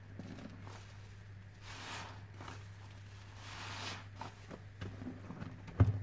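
Gloved hands squeezing and squishing a soapy sponge in thick dish-detergent foam, giving wet squelching swells and faint crackling bubbles, with a steady low hum underneath. A short low thump comes near the end and is the loudest sound.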